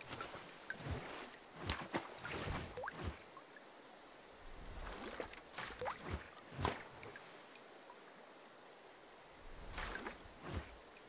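Water splash and drip sound effects: irregular plops, splashes and drips, some with a quick rising bloop, coming in clusters with short quieter pauses between them.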